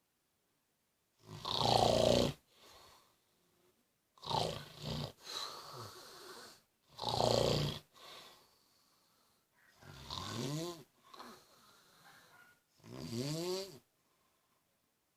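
A man snoring in his sleep: five loud snores about three seconds apart, each followed by a softer breath out. The last two snores rise in pitch as they go.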